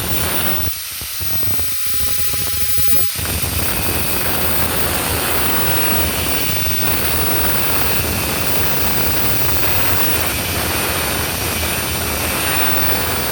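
Angle grinder cutting through the steel pin of a shovel, giving a loud, steady grinding hiss. Early on the grinding sound thins out and breaks up for a couple of seconds, then settles back into steady cutting.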